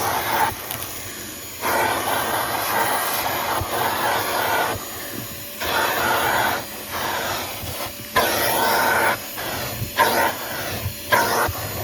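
Hyper Tough 1.5-gallon shop vacuum running and sucking through its nozzle. Its sound repeatedly swells and drops back, about every one to two seconds.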